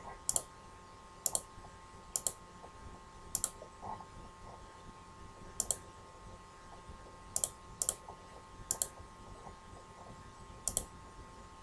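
Computer mouse clicking at irregular intervals of a second or two, several of the clicks quick double clicks.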